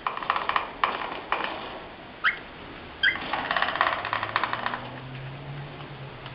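Male cockatiel rapidly tapping its beak against the feeder in two quick bursts of sharp clicks, with a couple of short rising chirps in between; this tapping is behaviour typical of male cockatiels.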